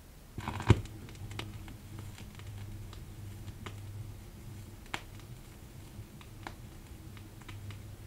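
Turntable stylus dropped onto a vinyl record with a sharp thump under a second in, then the lead-in groove playing: scattered crackles and pops over a low steady hum.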